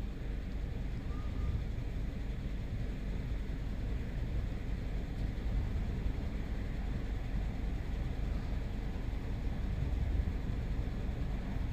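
Steady low hum of the Mini Cooper Clubman S's 2.0-litre turbo four-cylinder engine idling, with the alternator charging a deeply discharged battery at about 15.2 volts.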